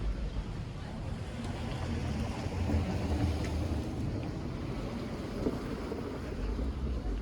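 Outdoor city street ambience: a steady low rumble, with wind buffeting the microphone.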